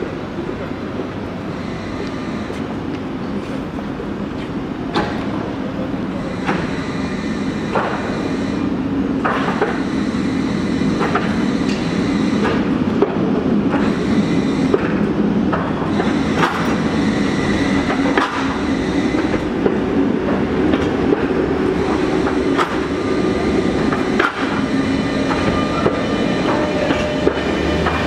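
Tatra KT8D5.RN2P articulated tram rolling slowly past over a temporary surface crossover (California switch). Its wheels clack repeatedly over the switch and track rails above a steady rumble that grows louder as it nears, with a brief faint squeal now and then.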